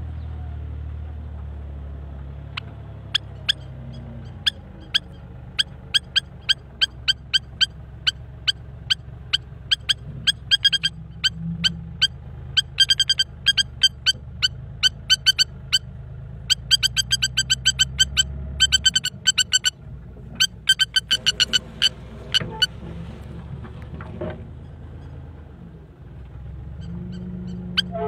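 A lapwing giving sharp, rapidly repeated alarm calls in quick runs, the sign of a parent bird defending its eggs from the machine beside the nest. Under the calls a heavy machine's engine runs with a steady low rumble.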